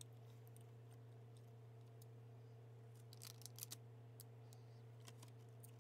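Near silence: a steady low hum, with a short run of faint sharp clicks about three seconds in and a few single clicks after.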